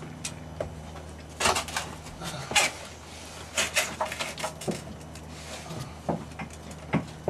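Irregular knocks, clunks and scrapes of hands and a lifting strap working against an old rusted diesel engine and the walls of a sailboat's engine compartment, the loudest about one and a half and two and a half seconds in, over a steady low hum.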